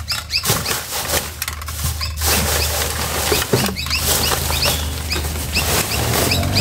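Plastic garbage bags rustling and crinkling as they are pulled about with a metal reach-grabber inside a steel dumpster, with small clicks and knocks. Short high squeaks recur throughout.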